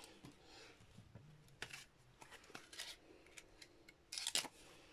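Patterned paper and cardstock being handled and peeled apart: faint rustles and light taps, with a short louder crinkle about four seconds in.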